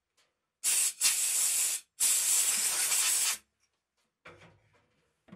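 A spray hissing in three close bursts, the last and longest about a second and a half, then a few faint clicks near the end.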